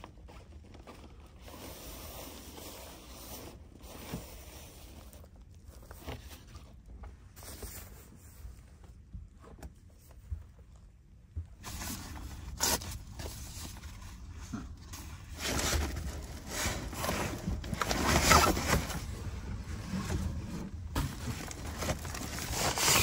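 Thermal blanket being handled and pressed into place: soft rustling and scraping, quiet for the first half, then louder and busier with small clicks and knocks from about halfway through.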